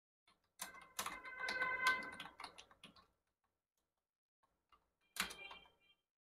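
Typing on a computer keyboard: a quick run of keystrokes for about two and a half seconds, a pause, then another short burst of keys about five seconds in.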